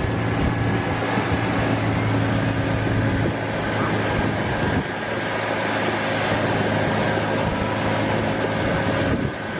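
Motorboat's engine running steadily at cruising speed, with wind and water rushing past the hull.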